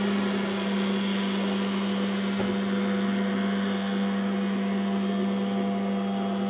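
Boat motor running at a steady speed while towing a water skier: a constant drone that holds one pitch throughout.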